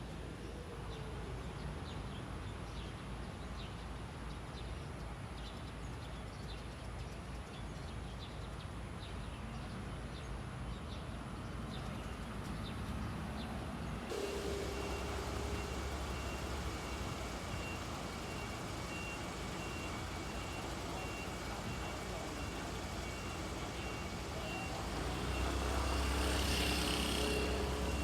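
Low traffic rumble, then a fire truck's reversing alarm beeping in a steady, evenly spaced pattern over its running engine. The engine grows louder near the end.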